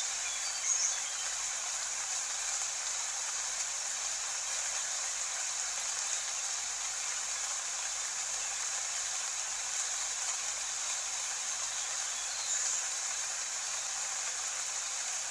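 Steady rain, an even hiss with no let-up.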